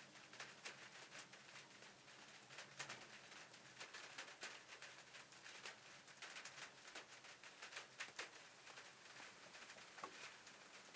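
Faint, irregular patter of raindrops, a few sharp drops a second.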